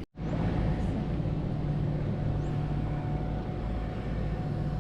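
A motorboat engine running steadily with a low, even drone over water and wind noise. It starts abruptly after a split-second of silence.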